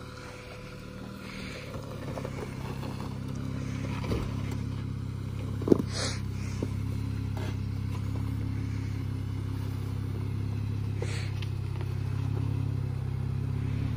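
Jeep Wrangler Willys engine running at crawling speed on a rocky trail, getting a little louder about four seconds in. A single sharp knock a little before six seconds and a few lighter clunks: the body or underside knocking on rock.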